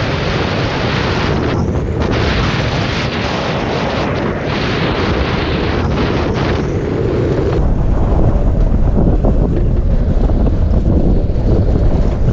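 Wind rushing over the microphone of a camera moving fast downhill, mixed with the rolling noise of street luge wheels on asphalt. About seven and a half seconds in it turns to deeper, heavier wind buffeting.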